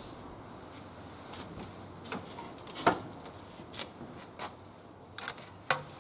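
Wood fire crackling: irregular sharp pops and snaps over a low steady hiss, the loudest pop about three seconds in and another near the end.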